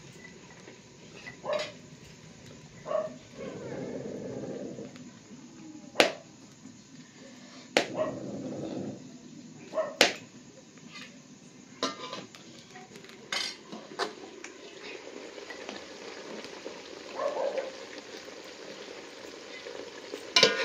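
Wood fire in a mud chulha under a cooking pot, with a scattering of sharp cracks and knocks as the firewood is tended, and a few short animal calls in between.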